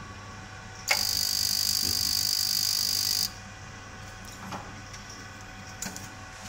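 Gas boiler start-up attempt with its EBMpapst RG148 combustion fan humming steadily. About a second in, a loud hissing buzz, typical of the ignition spark, starts with a click, lasts about two and a half seconds and cuts off suddenly. A couple of faint clicks follow.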